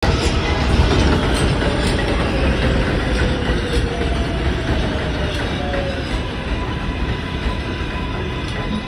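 A 7 train of R188 subway cars running through an elevated station without stopping: a steady rumble and clatter of wheels on the rails, with a whine that falls in pitch over the first few seconds, the noise slowly easing.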